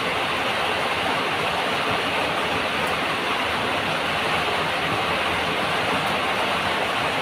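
Steady, even rushing noise with no distinct events in it; no chewing or other separate sounds stand out above it.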